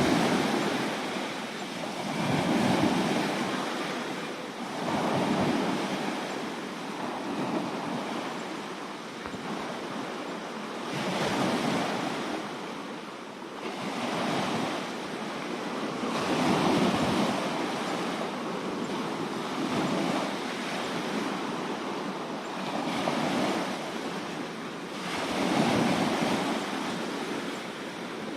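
Sea waves washing in, swelling and fading in repeated surges every two to three seconds.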